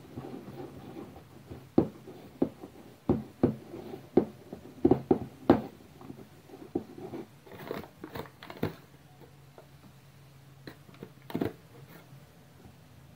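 A hand squeezing and kneading soft, sticky biscuit dough into flour in a bowl: irregular wet slaps and squelches, thickest through the first two-thirds and trailing off, with one more near the end.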